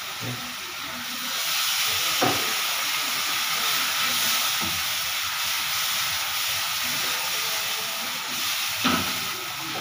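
Sambal sauce in a hot wok sizzling and hissing as a little hot water is poured in. The hiss swells about a second in and eases near the end, with a couple of short clinks from the cooking utensil.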